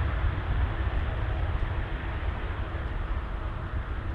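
Boeing 777-300ER's GE90 engines at takeoff thrust on a wet runway: steady, deep jet noise with a faint engine tone, fading a little as the aircraft rolls away.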